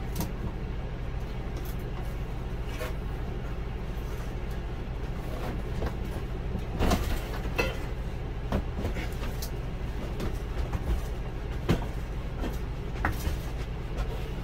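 Scattered knocks, bumps and scrapes of an RV refrigerator being shifted and worked out of its cabinet, over a steady low hum. The loudest knocks come about seven seconds in and again near twelve seconds.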